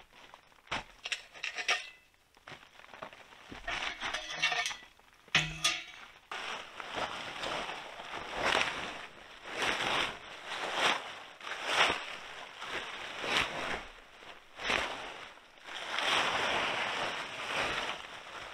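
Plastic tarp rustling and crackling as it is pulled back and gathered up by hand, in irregular bursts, with a longer steady stretch of rustling near the end.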